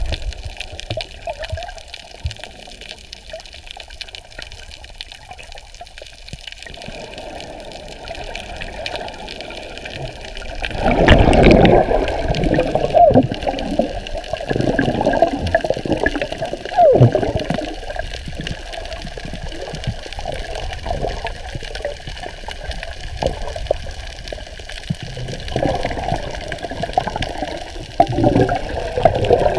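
Sea water splashing and moving around a camera held at the surface. It grows louder and rougher from about eleven seconds in, with irregular surges.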